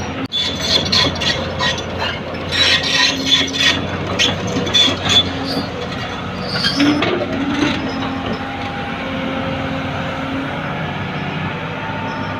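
Diesel engines of a Cat 50 forklift and a crawler excavator running steadily on gravel, with a run of high metallic squeaks and clanks through roughly the first five seconds.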